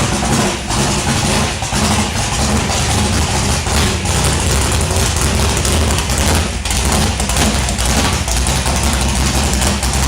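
Freshly rebuilt 439 cubic inch big-block Chevy V8 with a large solid-roller cam idling loudly and unevenly, its level dipping briefly every so often.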